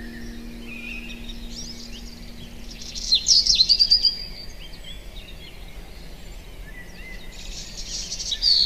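Woodland birds chirping and trilling, with a loud flurry of chirps about three seconds in and another near the end, over a steady outdoor background hiss.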